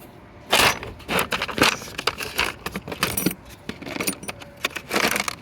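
Small metal hand tools clinking and rattling as they are handled and set down, with a louder clatter about half a second in.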